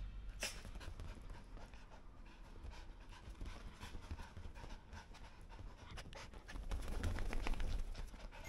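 Small Schipperke × Chihuahua mix dog panting, louder for a second or two near the end.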